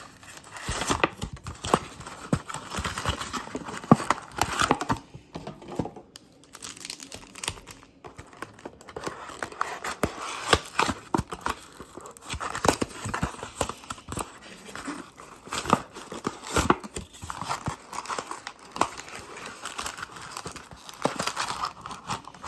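Plastic wrapping on trading-card blaster boxes and packs being torn open and crinkled by hand, with a quieter pause a few seconds in.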